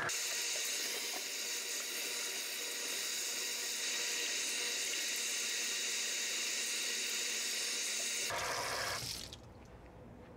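Kitchen sink faucet running in a steady stream while hands are washed under it, shut off about eight seconds in.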